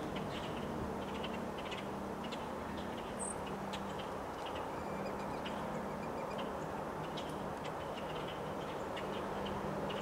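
Strong wind rushing steadily through bare trees, with short bird chirps scattered throughout and a faint low hum underneath.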